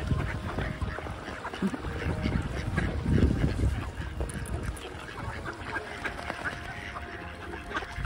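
A flock of mallards quacking and chattering on the water, many short calls overlapping throughout, with a low rumble about three seconds in.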